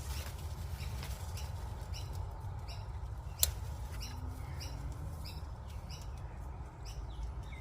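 A bird chirping over and over, short high calls about two a second, over a steady low rumble; a single sharp click about three and a half seconds in.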